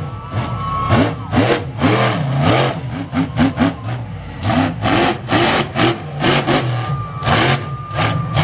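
Monster truck engine revving hard in a series of quick throttle blips, the pitch rising and falling with each one over a constant low rumble, as the truck pops a wheelie and drives across the dirt arena.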